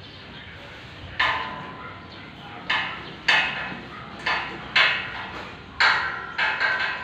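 Stainless steel window grill being knocked into place: sharp metallic knocks, each ringing briefly, about eight at irregular intervals starting a second in.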